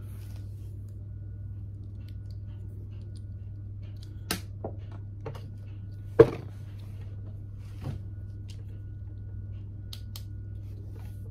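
A handful of sharp clicks from plastic LEGO pieces being handled and fitted together, the loudest about six seconds in, over a steady low hum.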